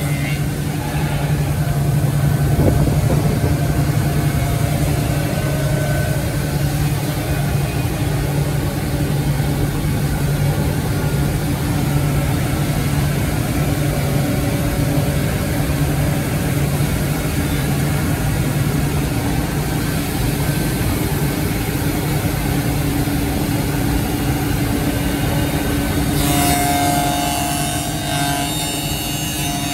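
Woodmaster two-spindle CNC copy shaper running with a steady machine hum. There is one knock about three seconds in, and near the end a brighter, higher whine comes in.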